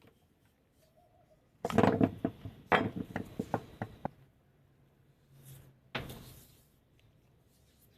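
A quick run of sharp knocks and clatters, like hard objects being handled or tapped together, then a single sharp knock about six seconds in.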